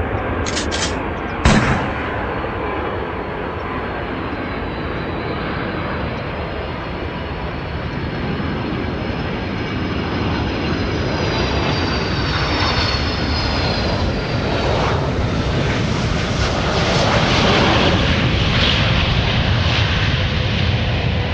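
Three sharp gunshot bangs in the first two seconds, then a fixed-wing aeroplane's engine running steadily with a high whine that falls slightly in pitch, growing louder near the end as it passes.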